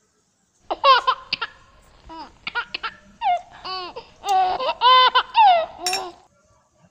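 Small shaggy dog whining and yelping in a run of short, high-pitched cries, many falling in pitch, begging for the cake.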